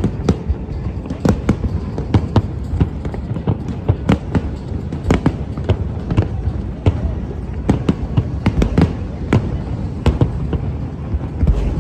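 Aerial fireworks going off: a rapid, irregular run of sharp bangs and cracks, several a second, over a continuous low rumble.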